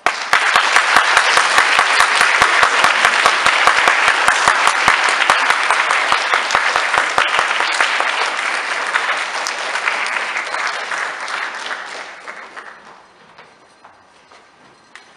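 Audience applauding, starting all at once and dying away after about twelve seconds.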